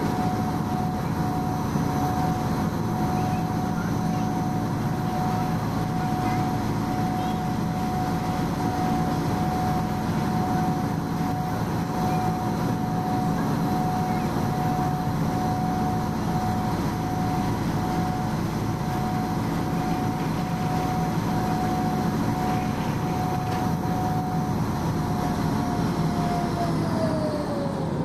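Harbourcat ferry's diesel engines running steadily under way, a droning hum with a high whine. The whine falls in pitch near the end as the engines slow.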